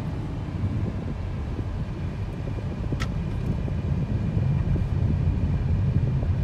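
Steady low rumble of a minibus's engine and tyres heard from inside the cab while driving, with a single sharp click about three seconds in.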